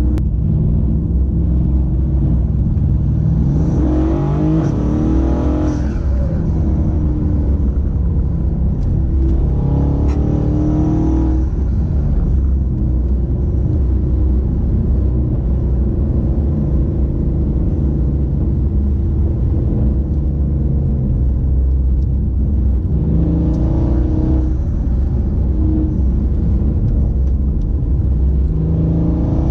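Twin-turbo 5.8-litre V8 (an enlarged M156) of a GAD-built Mercedes E63 AMG coupe under way: a steady low rumble with the engine note rising as it pulls under acceleration about four seconds in, again about ten seconds in, around twenty-four seconds in, and once more near the end.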